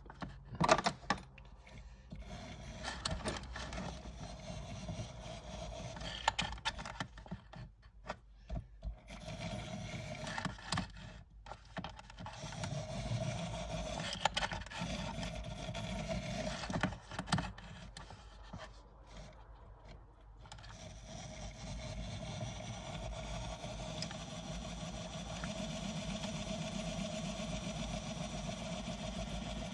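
Small electric motor of a TRIX N gauge Britannia locomotive running on test after new traction tyres and fresh lubrication, giving a steady whirring hum. It stops and starts again several times in the first twenty seconds, then runs on without a break; a few clicks sound about a second in.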